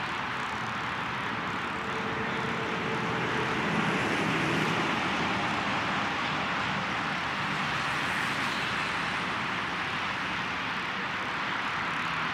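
Colorado & Southern 2-6-0 steam locomotive No. 9 and its train running at a distance: a steady rushing noise with a low rumble under it. A whistle note fades out in the first few seconds.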